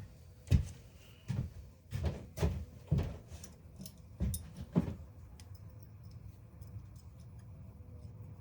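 Pliers and metal tool parts knocking and clicking as a power tool is worked apart by hand: about seven sharp knocks over the first five seconds, then only a low steady hum.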